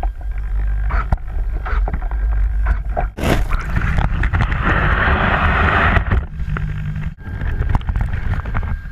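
Lake water sloshing and splashing around a camera housing on a crashed foam RC plane as it is pulled out of the shallows, with knocks from handling. A sharp knock about three seconds in is followed by a louder rushing noise that lasts until about six seconds in.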